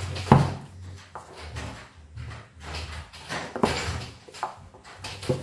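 Hands knocking and pressing on an upside-down aluminium cake tin to release the cake: a few sharp knocks, the loudest about a third of a second in, with low rumbling handling noise between them.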